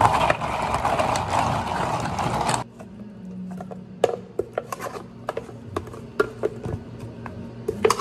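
A loud fizzing hiss from a carbonated ade in a lidded plastic cup, cutting off suddenly about two and a half seconds in. Then a thick blueberry yogurt smoothie is scraped out of a blender jar into a plastic cup, with a string of sharp taps and knocks of the spatula against the jar.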